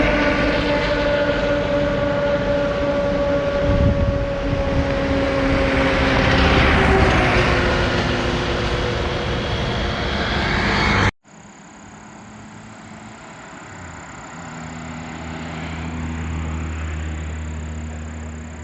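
Vehicle engine running amid loud road and wind noise, its pitch slowly falling. After a sudden cut about eleven seconds in it is much quieter: a steady high whine, and a low engine hum that grows louder.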